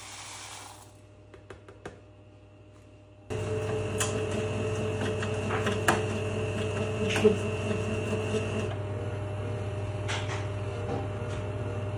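Plastic pellets pouring into a steel hopper with a hiss that fades out after about a second. A few seconds in, the mini injection molding machine starts running suddenly: a steady electric motor hum with a whine, and a few sharp clicks as the mold works. The whine drops out near the end.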